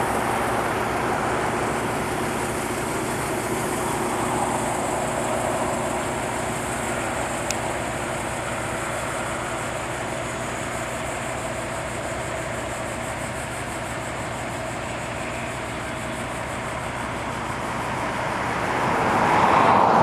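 Tractor engine running steadily at work powering a grain auger, with the rattle and hiss of the machinery under it; the sound grows louder near the end.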